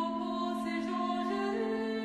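Slow background music: a steady low drone with a melody moving above it, stepping up in pitch near the end.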